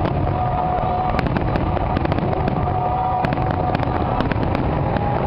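Fireworks display going off: a continuous low rumble of explosions with many sharp cracks and crackles scattered throughout.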